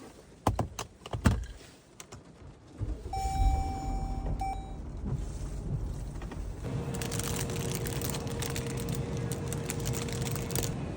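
A few sharp clicks and knocks, then a car engine starts about three seconds in and keeps running, with a short electronic chime just after it catches. A steady hiss and a steady hum join a few seconds later.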